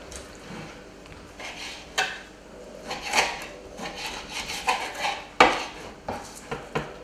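Kitchen knife knocking and scraping on a plastic cutting board while trimming a raw sea bass fillet: a string of irregular clicks, the sharpest about two seconds in and the loudest about five and a half seconds in.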